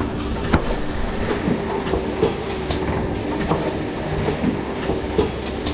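Rotary cup filling machine running: a steady mechanical hum with repeated sharp clacks as the turntable indexes and cups are pushed onto the plastic modular conveyor.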